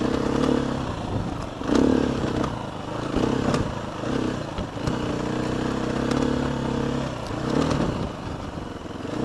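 Dirt bike engine ridden slowly over tight single track, the throttle opening in short bursts and easing off again several times, steadier in the middle. Short knocks and rattles come from the bike going over rocks. The rider feels the bike is geared too tall for such a tight trail.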